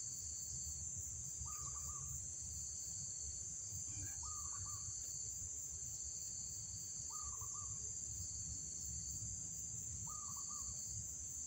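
Insects trilling steadily in a high, unbroken drone, with a short falling call repeated four times, about three seconds apart, over a low rumble.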